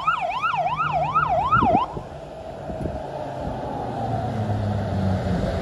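Fire engine siren sweeping rapidly up and down, about two sweeps a second, cutting off about two seconds in. The truck's engine then runs on, growing louder as it approaches.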